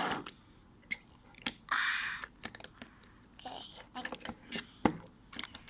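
Stretchy goo slime being squished and poked by hand: scattered sticky clicks and squelches, with one longer squelch about two seconds in.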